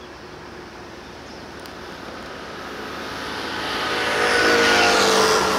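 A road vehicle approaching, its engine and tyre noise growing steadily louder from about two seconds in and loudest near the end.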